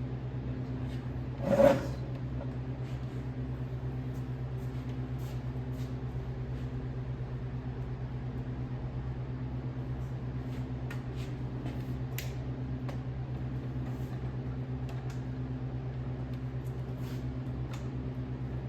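A machine running steadily with a low, even hum. A single knock with a brief ringing tone comes about one and a half seconds in, and faint ticks are scattered throughout.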